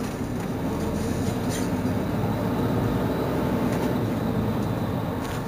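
Mercedes-Benz Citaro C2 city bus's engine running at idle, a steady low hum that grows a little louder towards the middle and eases off near the end.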